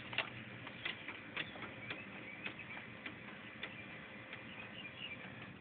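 Scattered light clicks and taps, roughly one or two a second, from hands and tools working on a car door's latch and trim panel.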